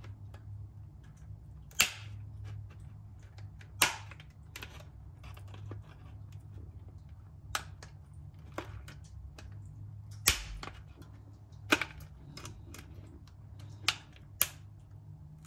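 Irregular sharp clicks and taps of an orchid, its pot and a glass vase being handled during repotting, about a dozen in all, with a heavier knock about ten seconds in, over a low steady hum.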